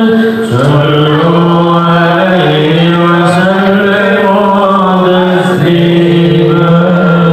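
A man chanting sholawat into a microphone over a PA, without instruments, holding long melismatic notes that step up and down in pitch.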